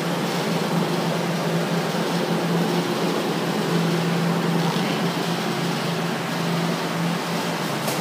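Steady mechanical hum: a constant low tone over an even rushing noise.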